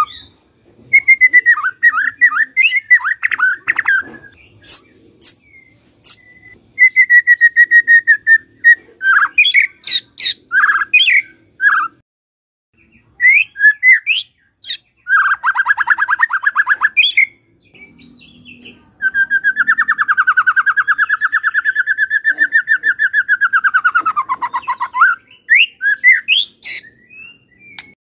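White-rumped shama (murai batu) singing loud, varied whistled phrases and sharp notes. About halfway through comes a rapid rattling trill, and later a longer rattle of about six seconds that falls in pitch near its end.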